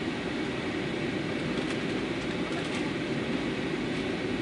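Steady cabin roar of an Airbus A320 airliner on its landing approach: engine and airflow noise as heard from a window seat, with a few faint clicks around the middle.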